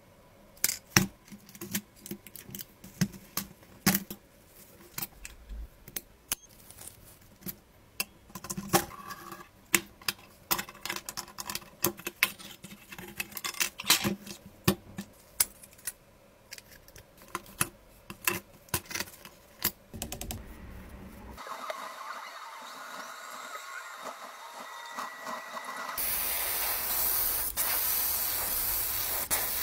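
Clicks, taps and scrapes as a rusted scale model car body is handled and its old paint is scraped off with a metal blade. About twenty seconds in, a steady hiss takes over, and it gets louder near the end as an airbrush sprays paint onto the body.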